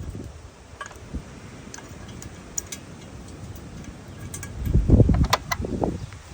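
Light metallic clinks and ticks of tools and engine parts being handled, with louder knocking and rustling handling noise about five seconds in.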